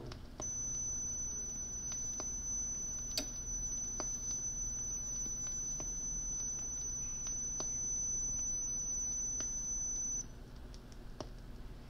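Steady 6 kHz sine test tone played back through an Ortofon Concorde MK II Digital phono cartridge. It starts about half a second in and cuts off suddenly about ten seconds in, with a few faint clicks along the way. It is part of a frequency-response test, and the tone comes through clean and strong.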